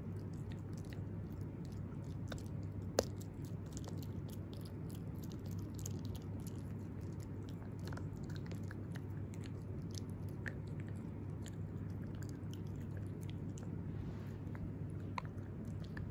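Italian greyhound puppy chewing and gnawing a dog dental chew held in the fingers: irregular small crunching clicks of teeth on the chew, with one sharper click about three seconds in.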